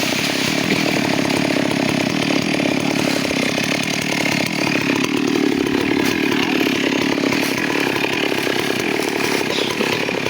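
Two-stroke chainsaw running steadily at high speed, cutting into teak.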